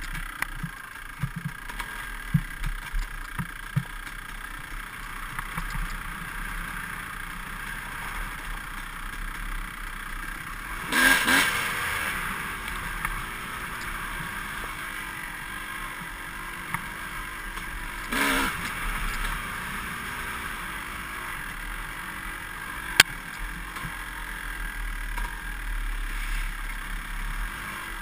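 Dirt bike engine running along a rough trail, with clatter from the bike-mounted camera over bumps. The engine surges louder twice, about a third of the way in and again past the middle, and there is a single sharp click late on.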